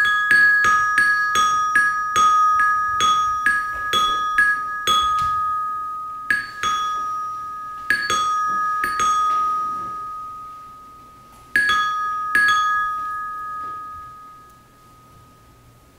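A high-pitched metal chime struck again and again on the same note, each strike ringing on. The strikes come about two a second at first, then fewer and further apart; the last falls about twelve and a half seconds in and its ring dies away soon after.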